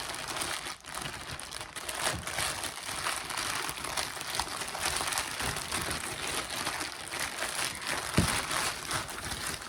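Packaging crinkling and rustling steadily as an item is unwrapped from its box, with a single sharp knock about eight seconds in.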